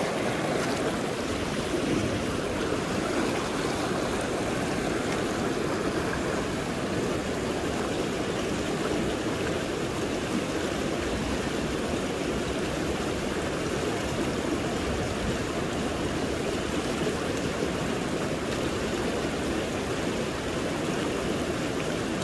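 River current flowing steadily over a shallow riverbed, an even rush of water with no breaks.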